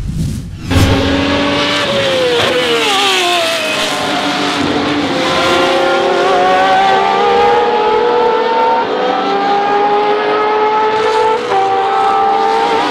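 Ligier JS17's Matra V12 engine at racing speed, coming in right after a short whoosh. Its note drops as the car slows, then climbs again through several upshifts as it accelerates away.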